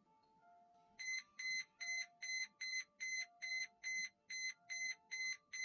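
Electronic alarm beeping rapidly and evenly, about two and a half high-pitched beeps a second, starting about a second in, over a soft background tune.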